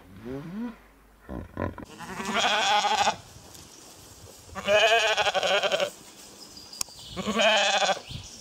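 Sheep bleating: three wavering baas, each about a second long and roughly two seconds apart.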